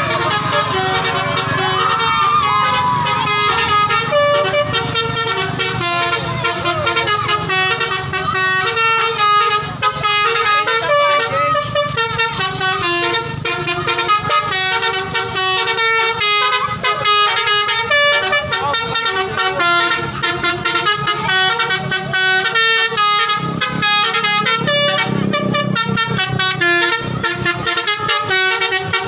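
Basuri telolet horns on tour buses: multi-note air horns playing quick tune-like runs of notes, one after another without pause. A bus engine runs underneath.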